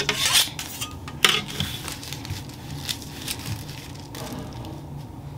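A metal Fairgate curve ruler being set down and positioned on tissue pattern paper: a few sharp clinks and scrapes with paper rustling, loudest in the first second and a half, then a couple of fainter taps about three seconds in.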